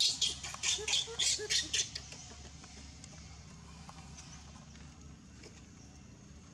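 Baby macaque screaming in quick, high-pitched shrieks, several a second, which stop about two seconds in. It is the distress crying of a baby being weaned, pushed away by its mother while it begs for milk.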